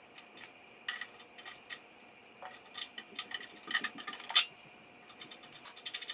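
Small metal clicks and clinks of pliers working the cotter pin out of the propeller nut on an old outboard motor's lower unit, with a louder clink about four seconds in and a quick run of small ticks near the end.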